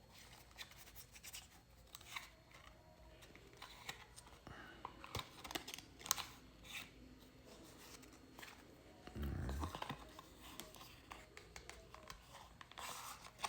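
A small deck of oracle cards being handled: light clicks, scrapes and rustles as the cards are slid and turned over in the hands, with a dull bump about nine seconds in.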